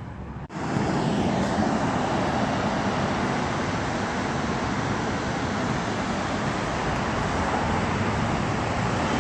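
Steady rushing outdoor noise with no distinct events, starting abruptly about half a second in.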